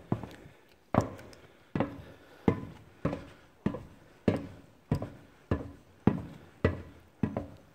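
Footsteps going down a stopped metal escalator at a steady walking pace, about a step and a half each second, each footfall ringing briefly.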